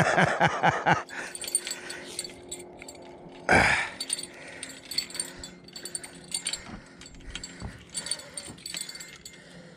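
Baitcasting reel being cranked with light metallic clicking as line is won back from a hooked striped bass, over a steady low hum. There is a quick run of low, falling sounds at the start and a louder low burst about three and a half seconds in.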